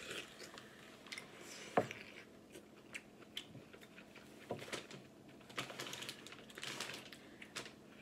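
Faint eating sounds at a seafood boil: chewing and lip smacks, with shrimp shells being peeled by hand. Scattered small clicks run through it, with one sharper click just under two seconds in.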